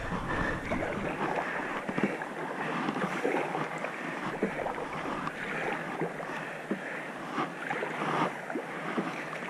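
River water rushing and lapping around a kayak, with many small splashes against the hull.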